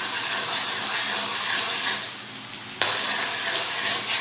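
Minced garlic sizzling in hot oil in a wok as a metal spatula stirs it. The hiss eases off for a moment about two seconds in, then comes back sharply.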